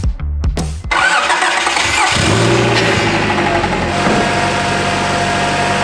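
A 1997 Honda Prelude's H22A4 VTEC four-cylinder, fed by a new intake and Skunk2 exhaust, is started for the first time after a rebuild: it starts about a second in and settles into a steady, smooth idle. Music plays briefly at the start.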